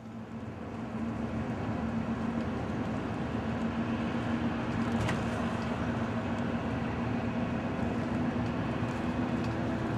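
Engine and road noise heard from inside a moving vehicle: a steady drone with a low hum, swelling up over the first second.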